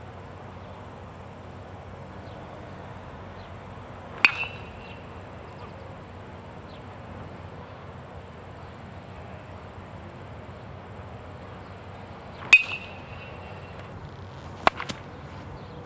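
Baseball bat striking pitched balls: two sharp cracks about eight seconds apart, each with a short metallic ring. Near the end comes another sharp crack with a lighter click just after it.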